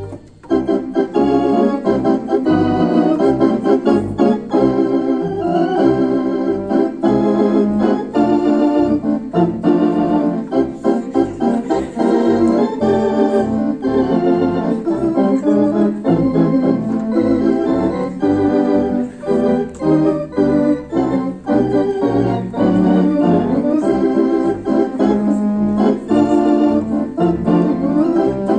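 Theatre organ played live: full, rhythmic chords over a bass line, coming in loudly about half a second in and continuing without pause.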